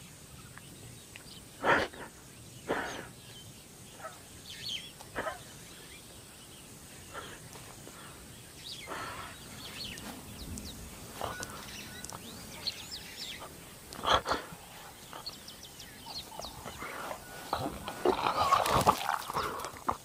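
Young lion retching and heaving: a few short, sudden heaves spread apart, then a longer, louder bout near the end. The lion is sick, which may come from eating rotten hippo meat.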